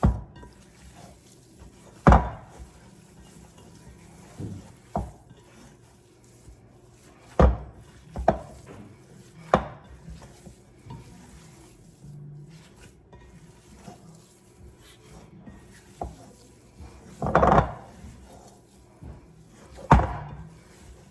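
Irregular knocks and clatter of a mixing bowl against the counter while a ground-meat mixture is kneaded by hand, about ten in all, with one longer clatter about three-quarters of the way through.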